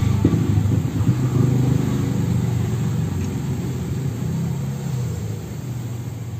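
Medium-type cast-iron gas stove burner running with a steady low roar of gas flame, slowly getting quieter toward the end.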